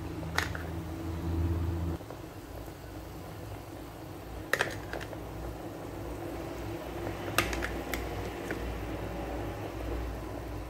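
A few light clicks and taps of a utensil against the metal steamer tray and plate as steamed vegetables are moved out of the rice cooker, over a low steady hum.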